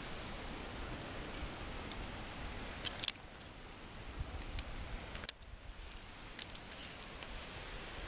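Via ferrata carabiners and harness gear clinking against the steel safety cable: a few sharp metallic clicks, the loudest about three and five seconds in, with a small cluster near seven seconds. A steady background hiss runs underneath.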